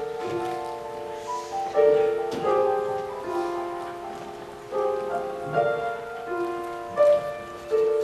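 Piano accompaniment playing slow chords, each struck and left to ring and fade, a new chord about every one to three seconds.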